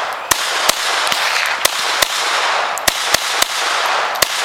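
About ten gunshots at uneven intervals, some close together and some a second apart, over a steady rushing noise.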